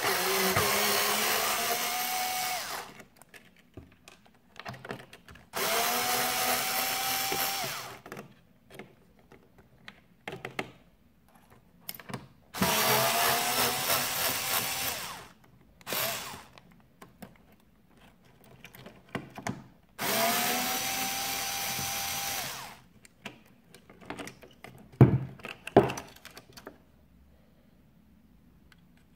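Cordless drill-driver backing out four screws, in four separate runs of two to three seconds each, its motor whine rising as it spins up and then holding steady. A few sharp clicks and knocks come near the end.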